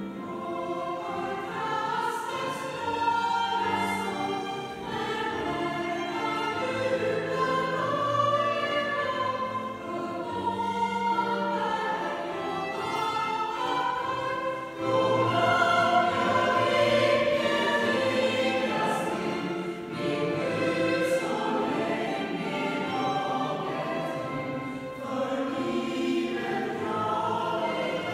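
Mixed choir of women's and men's voices singing a sustained, slow-moving piece in a church.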